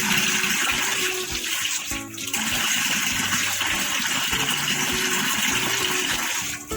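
Water rushing or running steadily, with a short dip about two seconds in, over soft background music.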